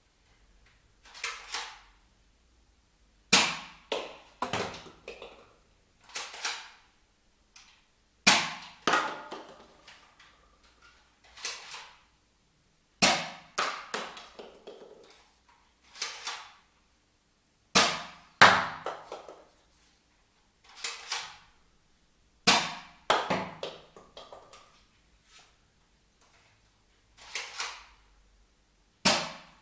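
Nerf Zombie Strike Sidestrike, a single-shot spring-powered foam-dart pistol, being primed and fired over and over. Sharp snaps come every two to three seconds, each with smaller clacks and knocks around it.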